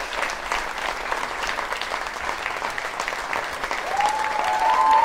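Theatre audience applauding with dense, steady clapping. Near the end, high held voices cheering rise over the applause.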